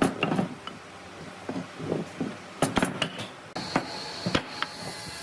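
Scattered knocks and clinks of hard objects being handled. About three and a half seconds in, a steady hiss with a thin high whine comes in and runs on under a few more knocks.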